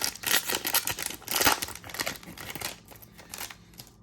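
Trading card pack wrapper being torn open and crinkled by hand, an irregular crackling that is loudest about a second and a half in and dies away near the end.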